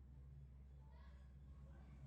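Near silence: a faint steady low hum, with a few faint, brief pitched sounds.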